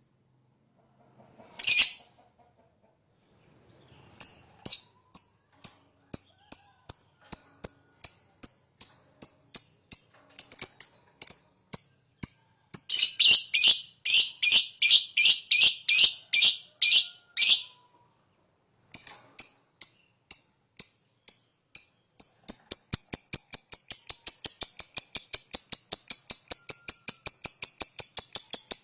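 Green lovebird singing in short, high, sharp chirps, a few a second. The chirps grow denser and busier for a few seconds mid-way, pause briefly, then run on as a long unbroken string of rapid chirps.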